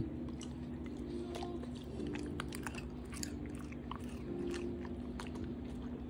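Golden retriever chewing a cherry tomato: a run of short, wet crunching clicks over a steady low hum.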